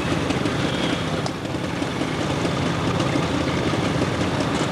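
Motor scooter engines running in a steady, rumbling drone.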